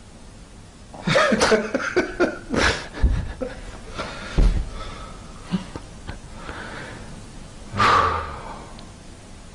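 Two men laughing in irregular bursts, with a loud outburst of laughter near the end.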